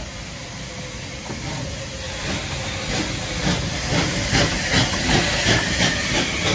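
Bulleid West Country class three-cylinder steam locomotive 34092 City of Wells getting under way, with steady steam hiss from its open cylinder drain cocks. From about two seconds in, regular exhaust chuffs come in at roughly two to three a second and grow louder.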